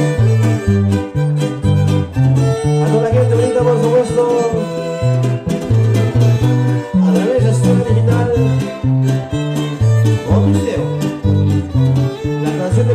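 Son huasteco trio playing an instrumental break: a violin carries the melody over a strummed jarana and the bass notes of a large huapanguera guitar, in a steady, bouncing rhythm.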